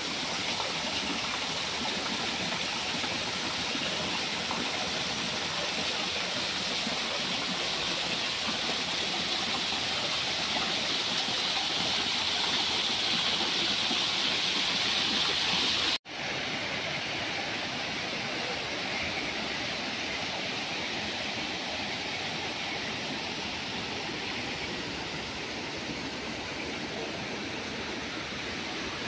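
A small garden waterfall splashing over rocks into a pool: a steady rush of running water, with a brief dropout a little past halfway, after which it is slightly quieter.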